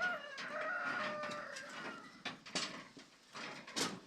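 A rooster crowing: one long call of about two seconds, followed by a few sharp knocks.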